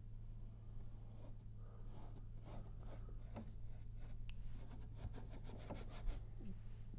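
Paintbrush working paint onto a painting: a quick run of short scratchy strokes from about a second and a half in until near the end, over a faint low hum.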